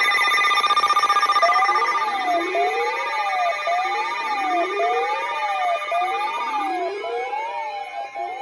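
NOAA Weather Radio alert signal: a steady high attention tone, near 1050 Hz, that stops about seven seconds in. Over it, a siren-like alarm tone sweeps up and down about once a second, with slower rising glides beneath.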